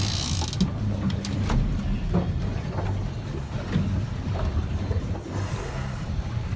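Boat engine running steadily at low speed, a low hum with a few light knocks over it.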